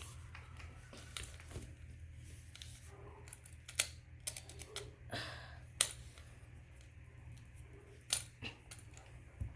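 Small plastic toy-kit parts being handled and fitted: scattered clicks and taps with a few sharper knocks, over a steady low hum.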